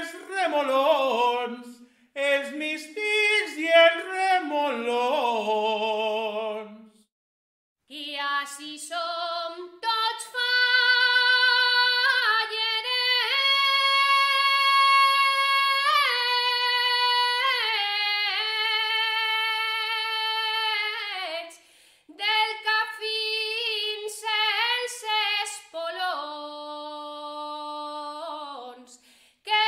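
Unaccompanied Valencian albà singing: a man finishes an ornamented phrase about seven seconds in, and after a short pause a woman takes over, holding long high notes with wavering melismatic turns between them.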